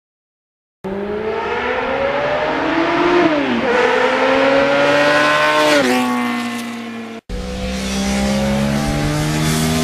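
Motorcycle engine accelerating hard, its pitch climbing and dropping sharply at two upshifts. After an abrupt cut, a second stretch of engine running at a steadier pitch.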